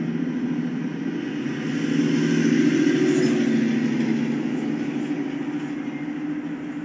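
Motor vehicles passing on a street over a steady low engine hum. The traffic grows louder about two seconds in and fades after about four seconds.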